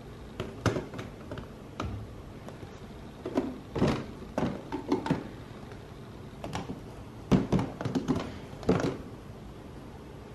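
Plastic jars and bottles being handled and set into a clear plastic storage bin, knocking against the bin and each other: short light knocks and clatters in a few bunches, loudest about two-thirds of the way through.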